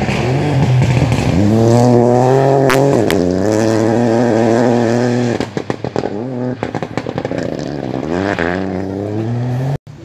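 Rally car engine revving hard, its pitch climbing and then held high. About five and a half seconds in the throttle is lifted and a rapid crackle comes through; the revs then climb again before the sound cuts off suddenly near the end.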